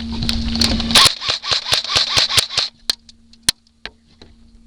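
Airsoft guns firing: a rapid string of sharp shots at about seven a second, then a handful of spaced single shots in the second half.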